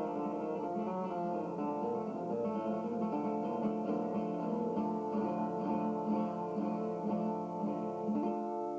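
Acoustic guitar being played, plucked notes ringing over one another.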